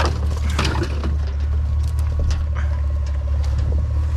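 Truck engine idling with a steady low drone, with a few short clicks and knocks on top.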